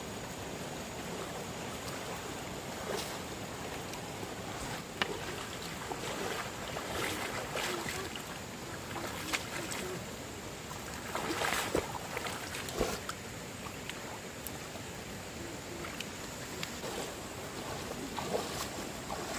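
Steady rush of flowing stream water, with scattered short knocks and splashes, most of them around the middle.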